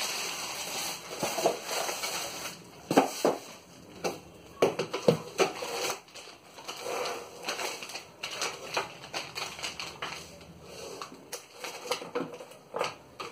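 Plastic packaging crinkling and rustling as zip bags of small parts and a plastic-wrapped acrylic sheet are handled, with irregular light clicks and knocks of the parts.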